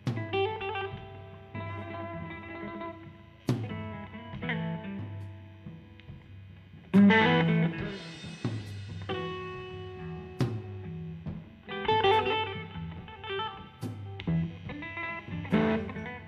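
Electric guitar and drum kit played live by a duo: guitar chords rung out in separate stabs with sustained notes, punctuated by drum hits. The loudest moment is a crash about seven seconds in.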